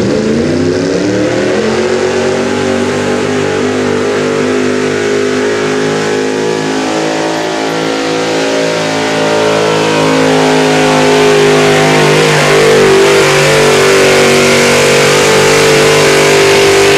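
Pickup truck's engine at full throttle, pulling a weight-transfer sled down a dirt pulling track. The revs climb in the first second, then hold high and steady, climbing a little more past halfway.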